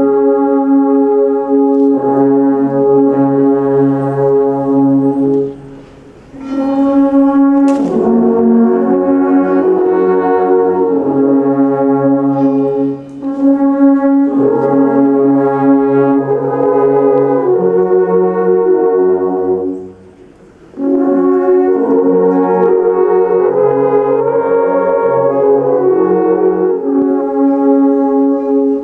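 A large ensemble of alphorns playing together in sustained chords, with two short breaks between phrases.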